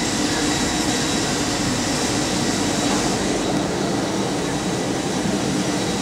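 Steady rushing hum of a parked airliner's ventilation and ground noise during boarding, even in level, with a faint steady high whine.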